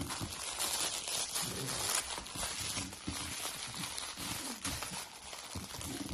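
Two dogs chewing and tearing at cardboard and paper packaging: a dense, irregular crinkling and crunching of paper as they gnaw and pull at it.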